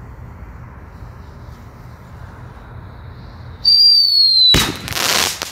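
Sky Bacon Whistle Bang Boom firework going off: a loud shrill whistle that falls slightly in pitch starts about three and a half seconds in and lasts under a second, then gives way to a loud bang and a rushing burst of noise. A low steady rumble sits in the background before it.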